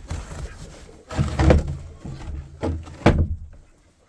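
A wooden coop door being pushed and forced against its frame: three heavy scraping thuds. The door is sticking and won't shut, its way blocked by something that needs a metal shovel to clear.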